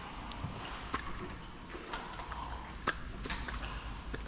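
Light handling noise in a plastic kayak: a handful of sharp clicks and small knocks, the loudest about three seconds in, over a low steady rumble.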